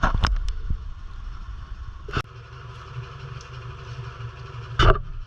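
An engine idling steadily, with a few sharp metallic knocks: a loud one about two seconds in and another near the end.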